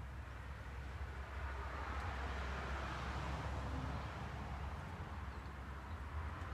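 Quiet backyard outdoor ambience: a steady low rumble with a broad hiss that swells and fades about halfway through.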